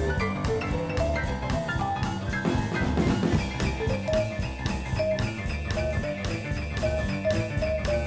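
Background music with a steady drum beat and short, bright melody notes; from about four seconds in, one note repeats at an even pace.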